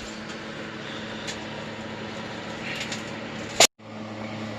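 Steady low hum with a few faint clicks, then a sharp click about three and a half seconds in, followed by a moment of dead silence.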